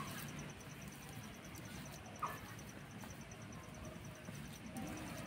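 Faint background with a steady, rapidly pulsing high chirp of an insect such as a cricket. One small soft sound comes about two seconds in.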